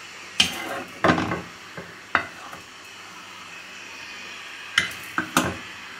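Metal kitchen utensils and dishes clinking and knocking: a few sharp knocks in the first couple of seconds and three more close together near the end, over a faint steady hiss.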